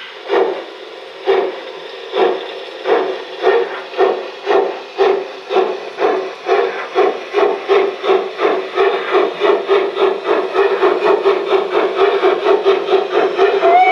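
Brinkmann sound module in a gauge 1 model of a DB class 58 steam locomotive, playing steam exhaust chuffs through its loudspeaker as the locomotive starts off. The beats come about a second apart at first and quicken steadily to several a second as it gathers speed.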